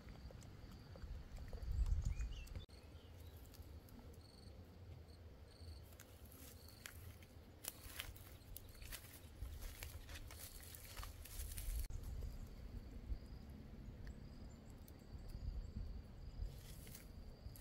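Outdoor rural ambience: wind gusting on the microphone, loudest about two seconds in, with faint repeated high chirps and scattered rustles and clicks of handling or footsteps.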